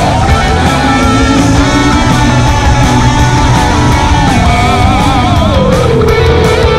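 Rock music with a guitar lead: a melody that wavers and slides in pitch over a loud, steady backing.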